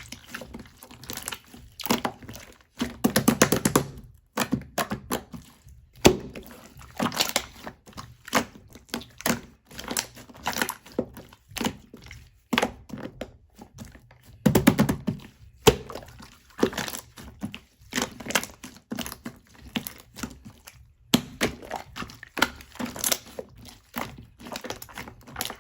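Dry round soap pieces crunching and crackling as they are handled and crushed: dense runs of small sharp cracks in uneven clusters, with brief pauses between them.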